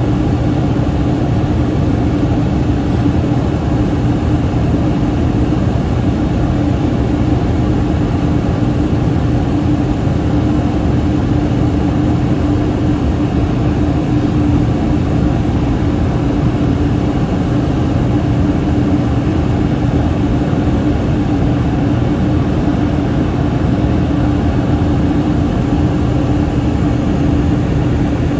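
Steady cabin noise inside a Yakovlev Yak-40 airliner in flight: its three rear-mounted Ivchenko AI-25 turbofans and the airflow make an even, unchanging rumble with a constant hum.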